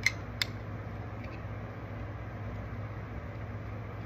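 Glass mason jar and a plastic-cased magnet being handled together: two light clicks about a third of a second apart near the start, and a couple of faint ticks a little later. A steady low hum lies under them.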